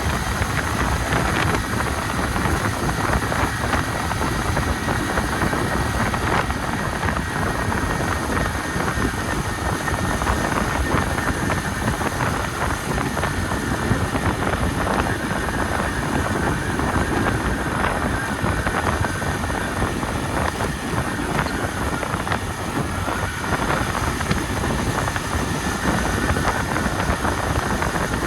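Honda CD 70's small single-cylinder four-stroke engine running as the motorcycle is ridden, heard under steady wind on the microphone and rain hitting the camera; one even, unbroken noise throughout.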